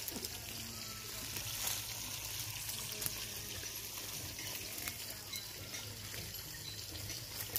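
Dry leaves and straw rustling and crackling as they are handled and trodden on, with scattered faint clicks.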